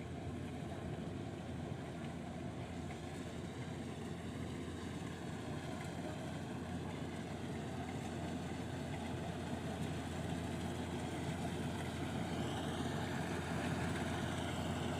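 Kubota 105 rice combine harvester running steadily, a continuous engine and machinery drone that grows a little louder over the last few seconds.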